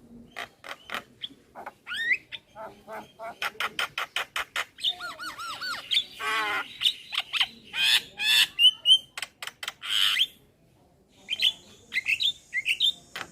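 Male Javan myna singing a varied, chattering song: rapid clicks and harsh squawks mixed with whistled up-slurs and a warbling trill, broken by a short pause about three quarters in.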